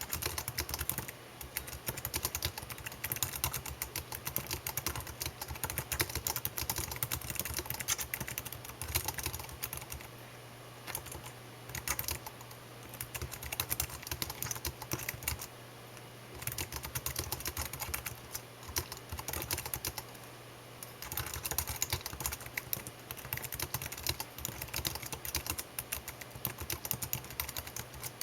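Typing on a keyboard: a rapid, uneven stream of key clicks, with a few short pauses of about a second in the middle stretch.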